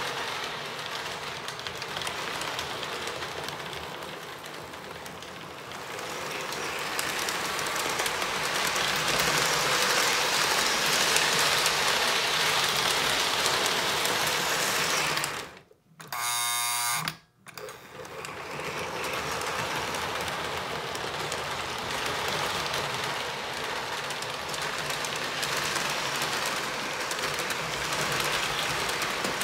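Lionel O-gauge electric toy trains running on tubular three-rail steel track: a steady whirr of motors and gears with the rolling rattle of wheels on the rails. Among them is a postwar Lionel 623 NW2 switcher, serviced with new motor brushes and collector rollers and freshly lubricated gears, running smoothly. About halfway through the running noise breaks off for a moment around a short steady tone.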